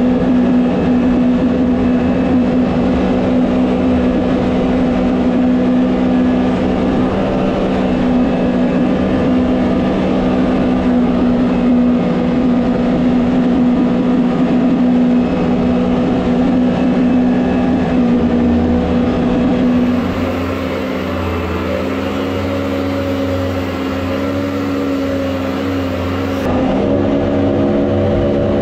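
Small jet boat's engine running steadily at high revs under heavy load while towing two boats, with rushing water. The engine note shifts slightly about two-thirds of the way through and rises again near the end.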